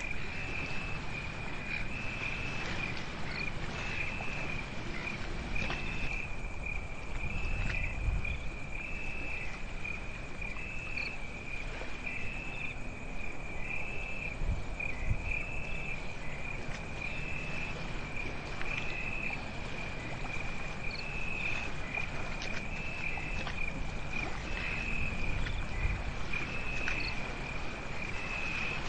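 Crickets trilling at night: one steady high-pitched note with a louder pulse about every second and a half, over a low rumble that swells now and then.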